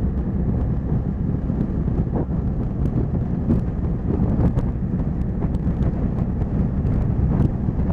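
Wind buffeting the microphone of a motorcycle-mounted camera at road speed, over the low rumble of the motorcycle and its tyres on a wet road. Scattered sharp ticks break through the steady noise.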